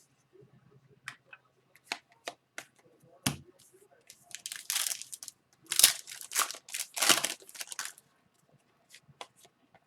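Hockey cards being handled with light clicks and taps, and in the middle a few seconds of crinkling of a foil card-pack wrapper, then a few more clicks.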